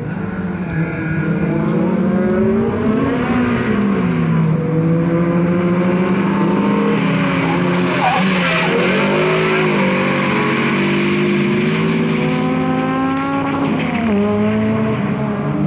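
Peugeot 306 engine driven hard, revving up and dropping back several times through gear changes and lifts. It is loudest as the car sweeps close by about halfway through, with tyres squealing in the turn.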